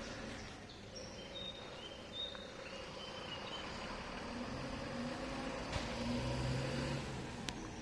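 Vehicle driving along a town road: steady road noise, with an engine hum that grows a little louder about five seconds in. Faint short high chirps sound in the first few seconds.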